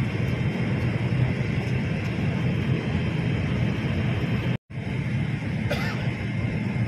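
Steady rumble of an airliner cabin in flight, engine and airflow noise. It breaks off for an instant about two-thirds of the way in.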